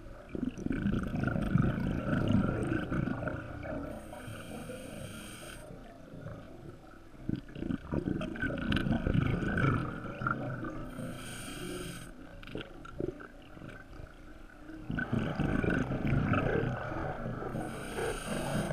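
Scuba diver breathing through a regulator underwater: a low rumble of exhaled bubbles, then a shorter hiss of the inhale, repeating about every seven seconds, three breaths in all.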